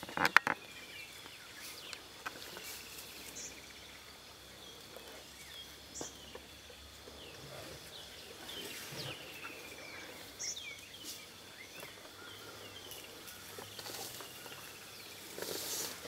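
Bush ambience: a steady high insect drone with scattered short bird chirps throughout, and a quick cluster of sharp clicks near the start as the loudest sound.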